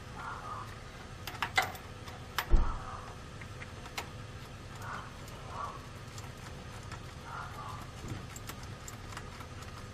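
Wrench work on the big battery-cable nut of a new starter solenoid on a Ford 7.3L Powerstroke diesel: scattered metallic clicks and knocks, the loudest a clunk about two and a half seconds in, with soft scraping between them over a faint steady hum.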